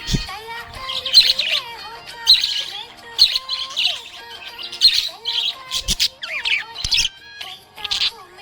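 Budgerigar chirping and chattering, a quick burst of high warbling chirps about once a second.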